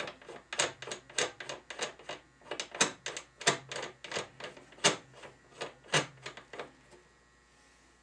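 Lee factory crimp die being screwed by hand into the threaded top of a single-stage reloading press, making a run of quick, uneven clicks that stop about two-thirds of the way through.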